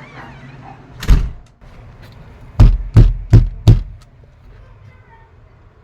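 Knocking on a door: one heavy knock, then a quick run of four loud knocks about a third of a second apart.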